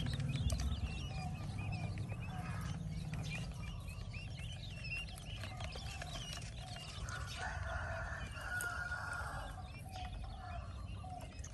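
Newly hatched Japanese quail chicks peeping: many quick, high chirps overlapping throughout, with a louder, lower run of calls about seven to nine seconds in.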